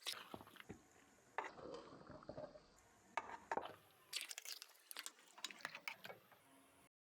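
Metal utensil knocking and scraping against a cooking pot in a series of short, irregular clinks, as when stirring. It cuts off suddenly near the end.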